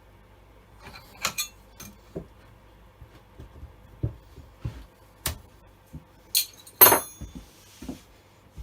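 Scattered metal clinks and knocks of a saw chain and guide bar being fitted onto an old Stihl 08S chainsaw, the loudest a ringing clink near the seven-second mark.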